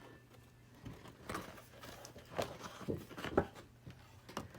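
Small plastic toy closet parts being handled and fitted together: a series of short, light clicks and rustles at irregular intervals.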